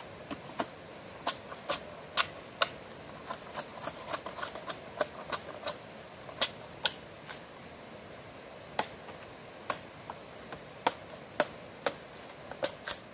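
Machete blade chopping into a wooden pole near its base: a run of sharp, irregular strikes, with a short pause about two-thirds of the way through.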